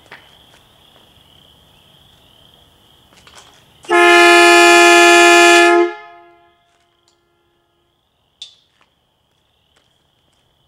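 A pair of truck air horns sounding one very, very loud blast of about two seconds, a chord of several steady pitches that stops cleanly with a short ring-out.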